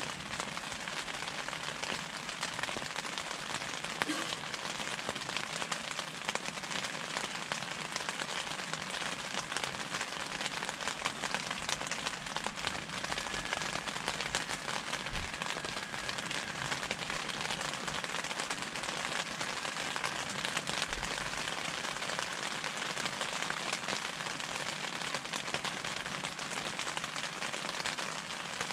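Steady rain falling on the fabric of a Discovery Adventures Lake Tahoe II pop-up tent, heard from inside: a dense, even patter of drops on the canopy, which has no rain fly over it.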